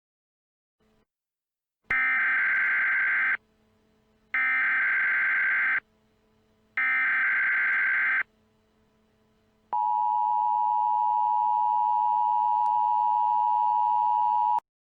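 Emergency Alert System tones: the SAME header's three bursts of warbling digital data, each about a second and a half, then the two-tone attention signal held steady for about five seconds, announcing a tornado warning.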